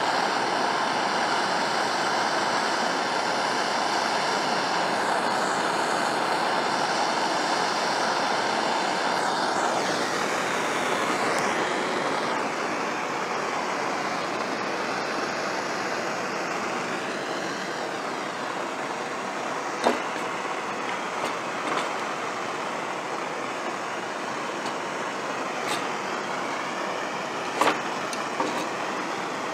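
Handheld gas torch flame hissing steadily while it heats aluminium for brazing a broken outboard skeg. A few light knocks, one about two-thirds of the way through and one near the end, as the clamped gearcase is handled.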